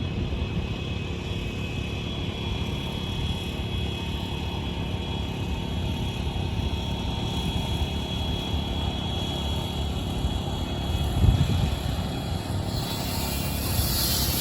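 Construction machinery engines running steadily with a low rumble and a faint high whine, one loud thump about eleven seconds in, and a hissing noise rising near the end.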